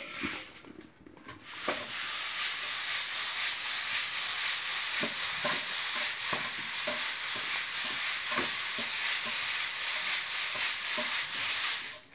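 A steady, loud hiss, starting about two seconds in and cutting off suddenly near the end, with a few faint taps through it.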